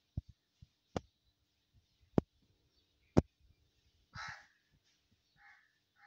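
A house crow gives one caw about four seconds in, then a fainter, shorter call near the end. Several sharp taps come before it in the first three seconds, two of them louder than the caw.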